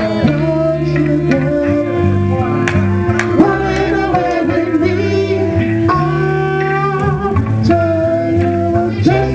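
Live band playing: singers over electric guitars and bass guitar.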